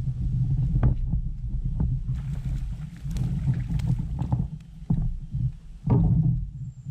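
Water splashing and knocking as a small spotted bass is reeled in beside a kayak and lifted out, the loudest splash about six seconds in, over a steady low rumble.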